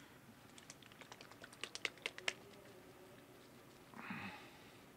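A run of light, sharp clicks and ticks, a dozen or so over about two seconds and loudest just before they stop, as a hand countersink tool is worked around a hole in a Bolex camera's metal mechanism plate to deburr it. A short soft hiss follows near the end.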